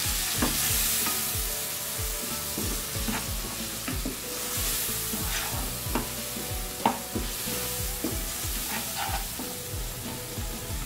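Potatoes, onions and ground spices sizzling in a non-stick wok, moistened with a splash of water, while a wooden spatula stirs them, with scraping and several sharp taps of the spatula against the pan.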